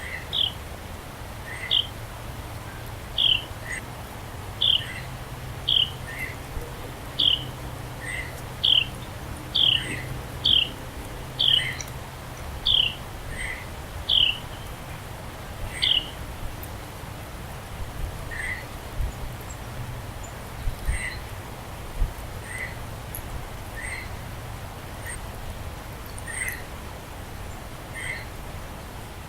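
Birds calling with short, downward-sliding notes repeated about once a second. A higher-pitched series runs through the first half and stops about sixteen seconds in, while a lower series carries on throughout.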